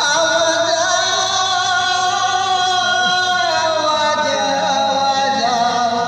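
A voice singing one long drawn-out note that slides slowly down in pitch partway through.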